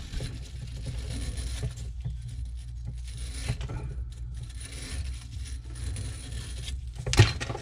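Small wire brush scrubbing the inside threads of a corroded threaded fitting, an irregular scratchy scraping that cleans the threads before a new pipe nipple goes in. A sharp knock near the end.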